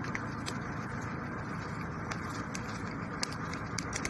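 Scattered light clicks and taps from hand work on a dismantled electric motor, over a steady background rumble.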